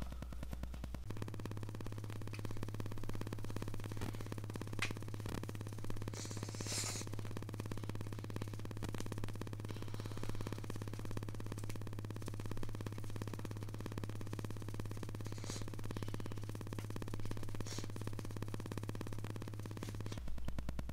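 Makeup sponge patting liquid foundation onto the face: a few faint soft dabs and rustles over a steady low hum.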